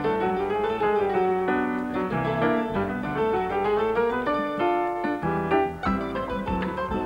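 Instrumental background music led by a keyboard melody.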